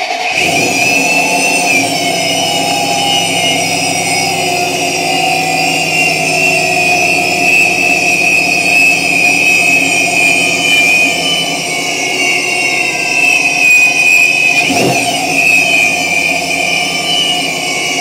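Vortech V2-SQ centrifugal supercharger on a Mustang engine, running at idle with a steady high-pitched whine over the engine note; the whine is the sign of a bad bearing in the supercharger. About fifteen seconds in, a quick blip of the throttle makes the whine swing up in pitch and back down.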